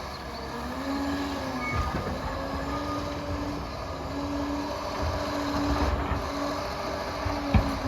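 Liebherr PR 746 crawler dozer working: the diesel engine runs steadily with the rattle and squeal of the steel tracks and a whine that comes and goes. There is a sharp knock near the end.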